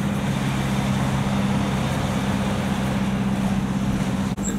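A road vehicle's engine running at a steady speed with tyre and road noise, heard from inside the cabin as an even low hum.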